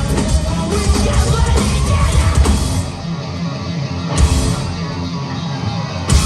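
Live post-hardcore band playing loud, with distorted guitars, drums and singing. About three seconds in, the bass and cymbals drop away for a sparser passage, punctuated by one hit a second later, and the full band crashes back in near the end.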